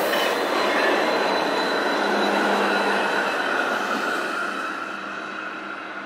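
Stadler Variobahn light-rail tram passing close, its wheels rumbling on the rails with a steady high-pitched whine over them. The sound fades from about four seconds in as the tram moves away.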